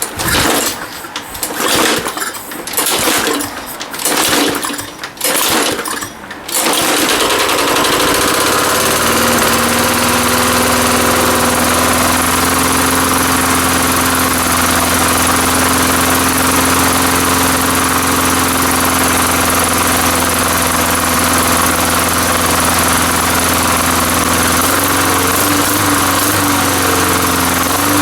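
Tecumseh lawn mower engine pull-started: several rough firing bursts about a second apart, then it catches about six seconds in and runs steadily at full throttle, its speed wavering slightly near the end. This is the first run after it was slightly hydrolocked with oil in the cylinder, and it burns that oil off.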